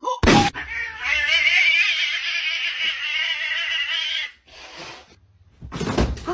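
A young grey cat, arched in a defensive stance, gives one long, wavering growling yowl lasting about four seconds: the warning sound of a frightened cat. A short knock comes just before it.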